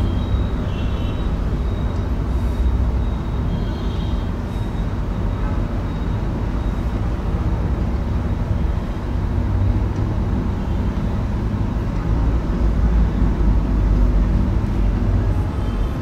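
Steady low background rumble throughout, with a few faint squeaks of a marker drawing on a whiteboard near the start and about four seconds in.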